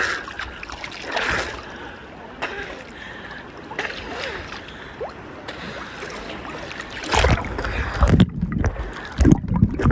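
Small waves splashing and lapping against a camera held at the sea surface. About seven seconds in the sound turns muffled and low, with heavy thumps, as the camera goes under water.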